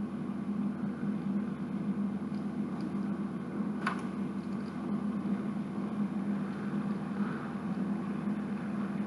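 A steady low hum from a machine running in the room, with one short click about four seconds in.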